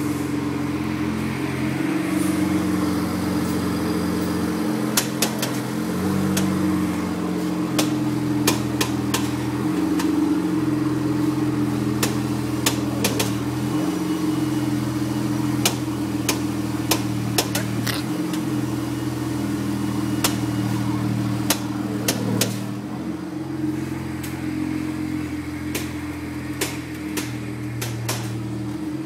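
Sharp clicks from a BMW E92's suspension, coming irregularly, often one to three a second, over a steady engine hum. The owner suspects the end links.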